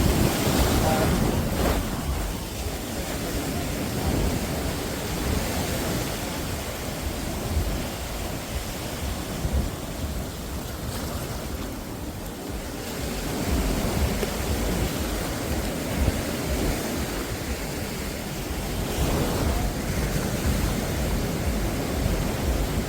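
Sea waves breaking and washing up the beach, swelling louder now and then, with wind rumbling on the microphone.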